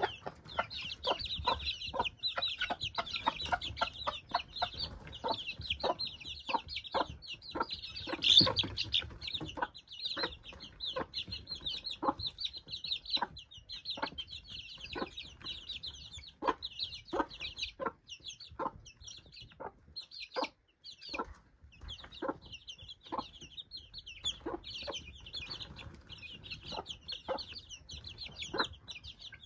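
A brood of young chicks peeping continuously in high, overlapping cheeps, while a mother hen gives short low clucks about once or twice a second. The peeping swells loudest about eight seconds in.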